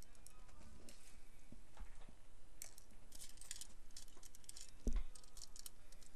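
Light scattered clicks and clinks of small dental implant parts and instruments being handled, with one dull bump about five seconds in.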